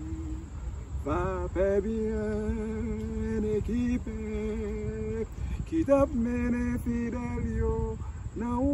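A man singing a Haitian Creole hymn, holding long steady notes with short breaks between phrases.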